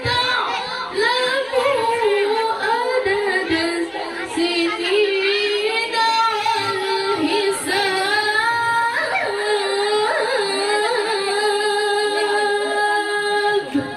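A woman reciting the Quran in the melodic tilawah style, with ornamented runs and long held notes.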